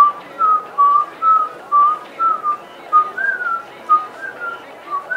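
A person whistling a tune, about a dozen short notes at roughly two a second, some sliding slightly in pitch, growing a little softer toward the end.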